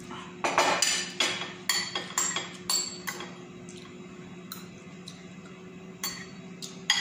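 Metal spoon clinking and scraping against a ceramic bowl while the last of the food and broth is scooped up. There is a quick run of clinks over the first three seconds, then a few scattered ones later.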